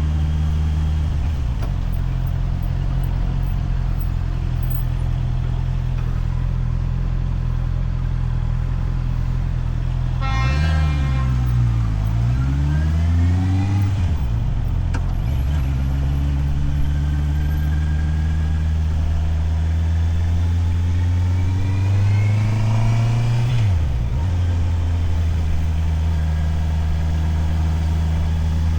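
Motorcycle engine running under way, its pitch dipping and climbing about ten seconds in, then rising steadily as it accelerates and dropping sharply at a gear change near the end.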